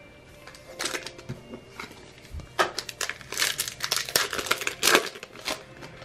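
A trading card pack's wrapper being ripped open and crinkled in the hands: a quick, irregular run of crinkling and tearing from about a second in, stopping shortly before the end.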